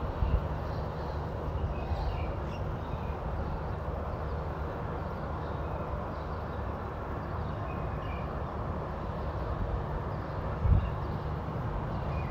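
Steady low rumble of outdoor street ambience, with a few faint high chirps now and then and a brief thump about ten and a half seconds in.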